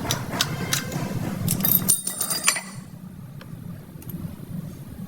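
A quick run of sharp metallic clicks and knocks, some with a brief ringing, over a low steady hum; the knocking stops about two and a half seconds in and only the hum goes on.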